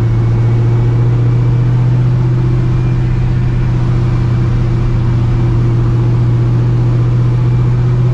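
Straight-piped, cammed and Procharger-supercharged 5.4 L two-valve V8 of a 1999 Ford Mustang GT at a steady cruise. It makes an even, low exhaust drone with a faint steady high whine from the supercharger over it.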